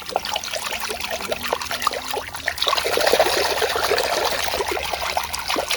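Running water splashing and trickling over a plastic toy as it is rinsed clean of dirt, growing stronger about two and a half seconds in.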